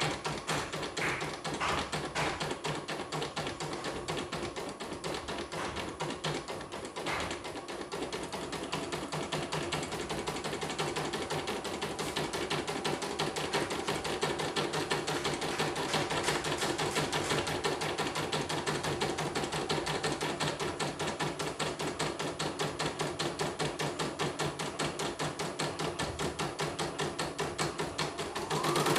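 Portable computerized embroidery machine stitching a design, its needle mechanism clattering in a fast, steady rhythm.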